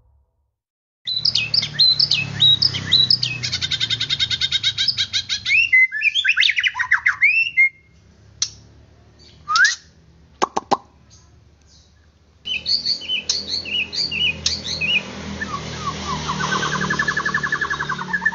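White-rumped shama (murai batu) in full song, a fast run of varied whistles and rapid trills. Near the middle it breaks for a few seconds into sparse sharp notes, then a second burst ends in a rolling trill.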